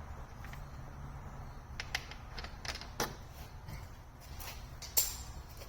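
Scattered metallic clicks and clinks of a hand tool working a 10 mm bolt on a car's battery tray, the loudest about three and five seconds in, over a low steady hum.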